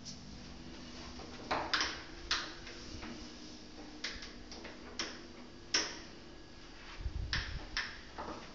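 Scattered light clicks and taps at an uneven pace, about nine in all, with a dull low bump about seven seconds in.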